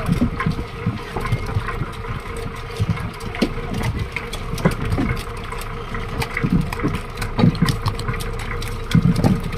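Fishing boat's inboard engine running steadily, with scattered clicks and knocks over it.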